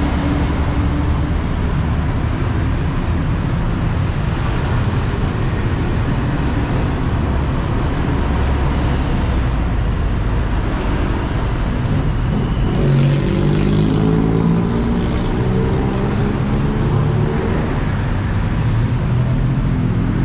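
Steady road traffic noise from cars and motorbikes at a busy intersection. About thirteen seconds in, a nearby engine revs up, its pitch rising for a few seconds.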